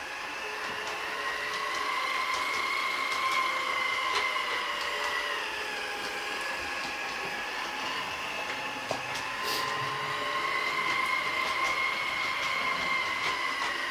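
LGB G-scale electric model train running on brass track: a steady whine from the locomotive's motor and gears, with scattered light clicks. The whine swells and fades in pitch and loudness twice as the train goes round the track.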